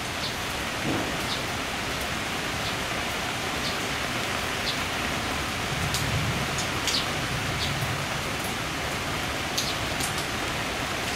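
Rain from a thunderstorm falling steadily, with scattered sharp ticks of drops.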